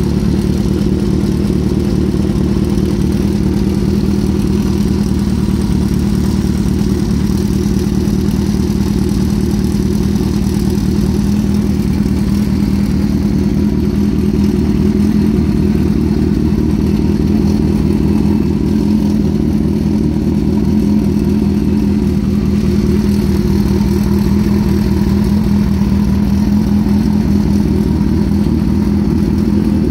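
Honda CB550F's air-cooled inline-four engine idling steadily, with an even, unchanging beat.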